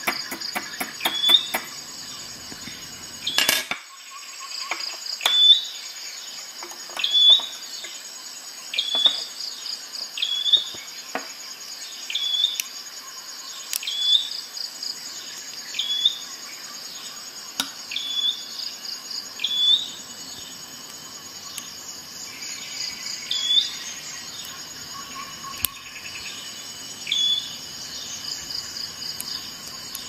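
Insects chirring steadily in a high, pulsing band, with a short high chirp repeating about every two seconds and a few sharp clicks.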